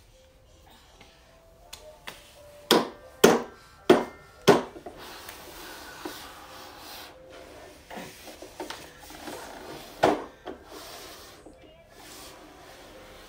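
Plastic toys knocking and clattering as a toddler bangs and handles them: four sharp knocks in quick succession a few seconds in, another about ten seconds in, with light rubbing and shuffling between.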